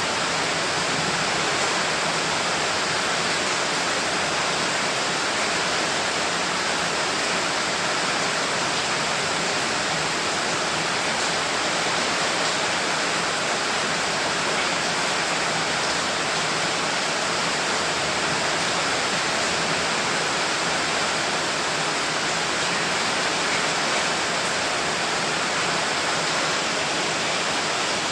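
Steady rain falling, a dense, even hiss with no separate drops or other events standing out.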